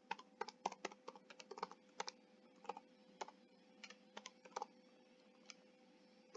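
Computer keyboard typing: quick runs of faint keystrokes that thin out after about three seconds and stop before the end, over a faint steady hum.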